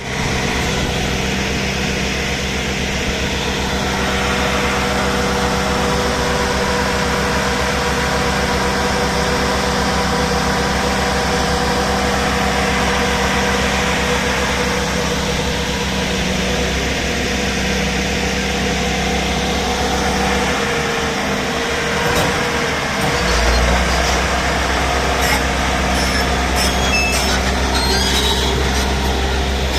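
Heavy machinery running steadily with a constant hum; the low rumble drops out briefly about two-thirds through and comes back stronger, and a series of sharp metallic clicks and knocks sounds near the end.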